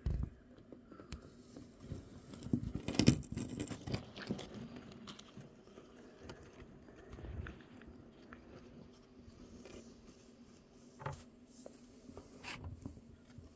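Light rustling and scattered clicks of handling noise close to the microphone. A brief crackling cluster about three seconds in, and single sharp ticks near the end.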